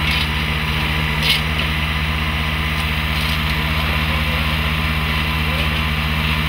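Engine of a rail-mounted track maintenance machine running steadily at a constant speed, with one sharp knock about a second in.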